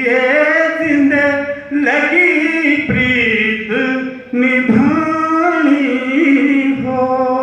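A man singing a Himachali Pahari folk song, drawing out long held notes that bend in pitch between short breaths.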